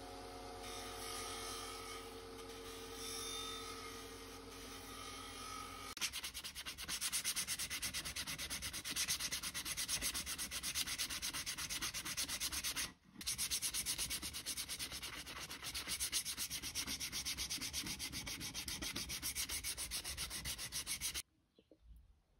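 A Scheppach bench sander's motor hums steadily as a wooden cleaver handle is pressed against its sanding disc. About six seconds in, this gives way to sandpaper rubbed by hand over the wooden handle in fast, even back-and-forth strokes, with a short break near the middle. The rubbing stops shortly before the end.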